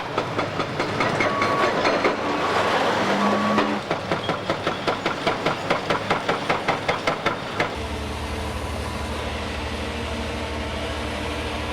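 Heavy demolition machinery working: rough rumbling noise, then a fast, even clatter of about four to five strokes a second from about four seconds in, giving way near eight seconds to a steady low engine hum.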